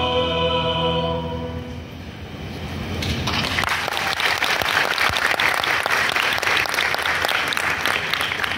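A mixed choir holds its final chord, which dies away within the first two seconds. About three seconds in, the audience breaks into applause that carries on, thinning slightly near the end.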